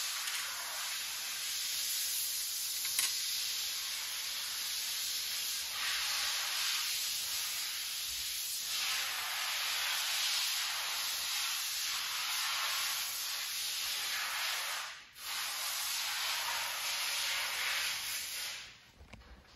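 Plastic protective film crinkling as it is handled on the supercharger: a rustling hiss that swells and eases every second or two, breaks off for a moment about three-quarters through, then stops near the end.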